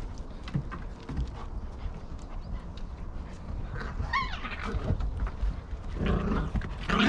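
A large dog and a jagdterrier puppy playing at close range, with small scrabbling clicks, a short high whine that rises and falls about four seconds in, and louder rough, breathy noise in the last second.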